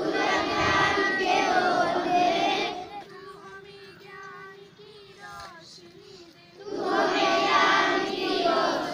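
A large group of schoolchildren singing a prayer together in unison. There are two loud sung lines, the first cut off about three seconds in and the second starting near the end, with a quieter gap between them.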